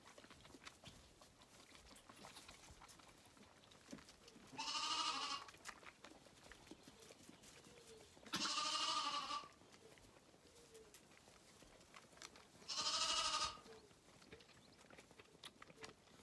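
Zwartbles lambs bleating for the bottle: three loud calls about four seconds apart, each about a second long with a wavering pitch.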